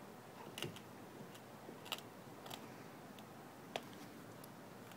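Chesapeake Bay retriever gnawing a wooden stick: a handful of faint, sharp cracks and crunches of splintering wood at irregular intervals.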